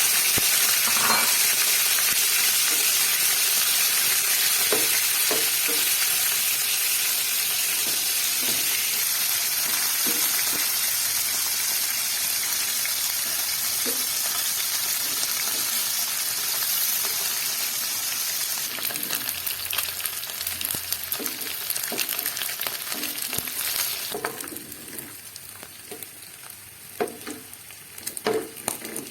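Food frying in hot oil in a pan, sizzling steadily while a spatula stirs and taps against the pan. The sizzle softens about two-thirds of the way through and falls away further near the end, leaving mostly the scattered spatula knocks.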